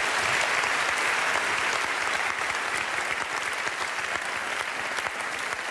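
Studio audience applauding steadily, the clapping easing off slightly toward the end.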